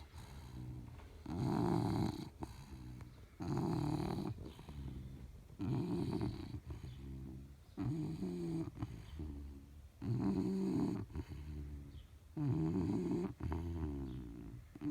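9-month-old bulldog snoring in its sleep, a loud rattling snore about every two seconds, each followed by a softer one, in a steady breathing rhythm.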